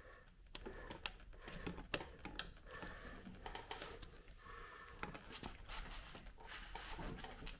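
Faint, scattered clicks and light metal taps from hand tools and small engine parts being handled while the dirt bike's clutch is assembled.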